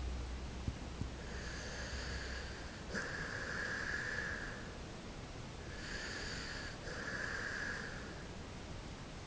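Sleeping dog snoring: two long snoring breaths, each in two drawn-out parts with a high, whistly tone.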